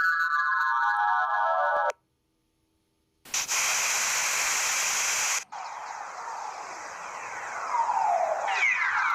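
A string of short sound-library effects played one after another. First comes a falling pitched tone that stops abruptly just before two seconds. After a brief silence there are about two seconds of loud hiss-like noise, then a noisy sound with falling glides that repeat near the end.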